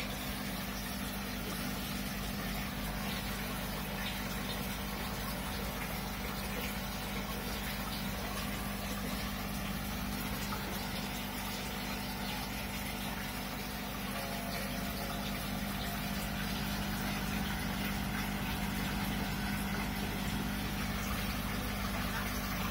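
Aquarium filter pump humming steadily, with a constant wash of moving water.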